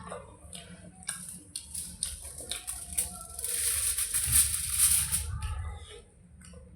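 Close-miked eating sounds from a mukbang of water rice and fried sides: scattered wet mouth clicks and chewing, then a louder, dense stretch of crunching for about two seconds near the middle.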